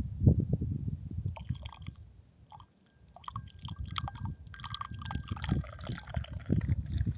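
Matcha being made by hand: liquid sloshing with small clicks and clinks of the cup and bamboo whisk, over a gusty low rumble of wind on the microphone.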